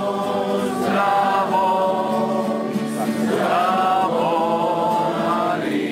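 A group of voices singing a hymn together in slow, held notes, moving from one sustained note to the next.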